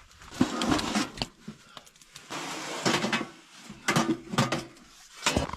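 Irregular knocks, clanks and rustling of gear being handled, with no steady engine or motor sound.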